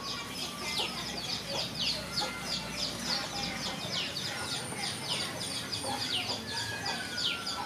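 Chicks peeping: a steady run of short, high, falling chirps, about three a second.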